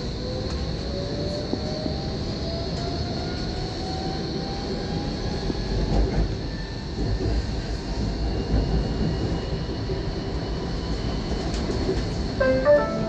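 Tram running on its rails, its traction motor whine rising steadily in pitch over the first few seconds as it picks up speed, over a constant high whine and low rumble. A short stepped chime sounds near the end.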